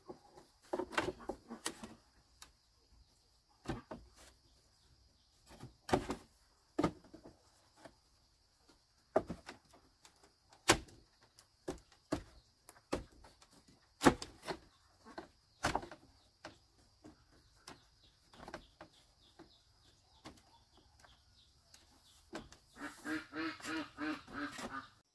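Scattered knocks and clicks, then near the end a duck quacking in a quick run of calls.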